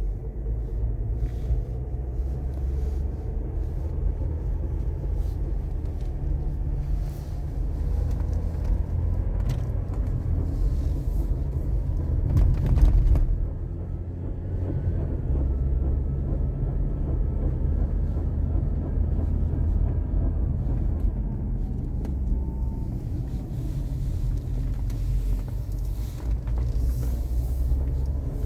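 Engine running with a steady low rumble and scattered clicks, rising louder briefly about twelve seconds in. The owner presents it as a bad engine noise.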